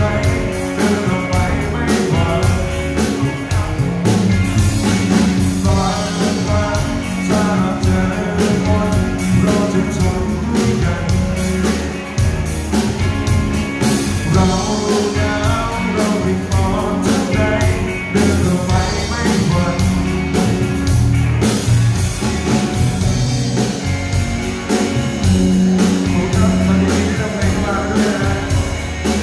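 Live rock band playing: a man singing over two electric guitars, electric bass and a drum kit with a steady beat.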